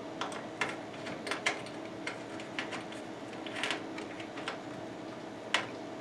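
Irregular small metal clicks and scrapes of a screwdriver turning screws through a motherboard into the standoffs of a steel PC case, with one sharper click near the end.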